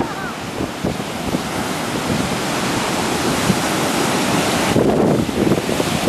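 Rough storm surf breaking on the shore under hurricane winds, with the wind buffeting the microphone in irregular gusts. About five seconds in, the wind buffeting grows stronger and the hiss of the sea drops back.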